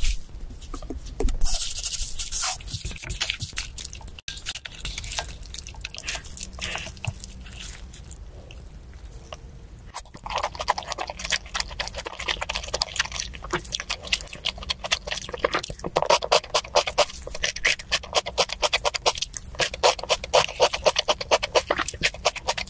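Eating and drinking sounds: scrapes and slurps, then from about halfway a run of quick, repeated swallowing and gulping noises while drinking.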